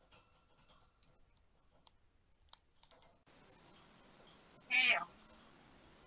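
An African grey parrot gives one short, loud, squeaky call about five seconds in, after a few seconds of faint scattered clicks.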